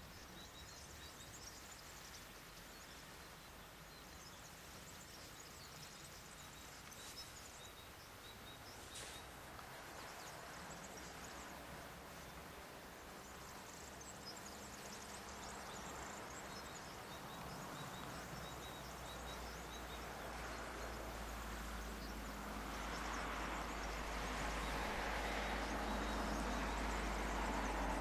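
Faint outdoor ambience: scattered high bird chirps in the first half, under a noisy hiss that grows steadily louder, with a low rumble added over the last third.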